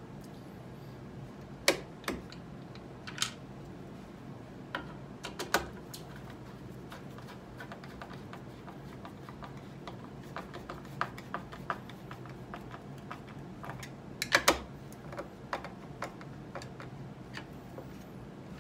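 Hand screwdriver and metal binding hardware clicking and tapping as binding screws are set and driven into the ski's threaded inserts: irregular small ticks with a few louder knocks, over a low steady hum.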